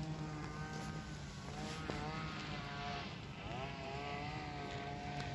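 An engine running over a steady low hum, its higher note rising and falling in pitch several times.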